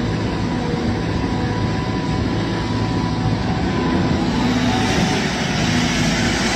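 A large engine or heavy machine running steadily with a low rumble.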